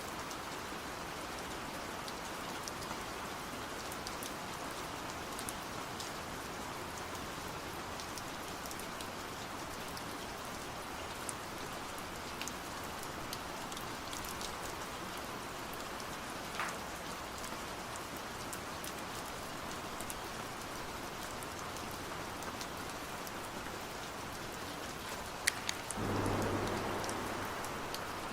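Steady rain falling, with scattered single drops ticking. Near the end there are two sharp ticks and then a brief louder swell with a low hum that fades away.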